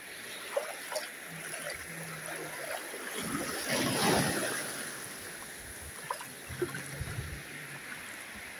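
Small wave washing in over the shallows and around a bare foot, a rush of foaming water that swells to a peak about halfway through and then fades into the steady wash of the surf.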